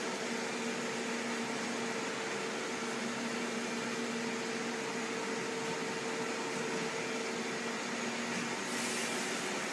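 CHMER wire EDM machine running: an even hiss with a steady low hum and two faint steady tones under it, and a brief brighter hiss near the end.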